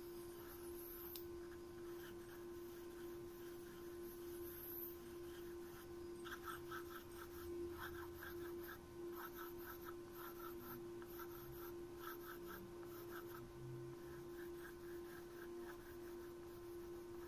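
Drawing strokes on paper: a pen tip scratching back and forth in quick runs of several strokes, starting about six seconds in, over a steady faint hum.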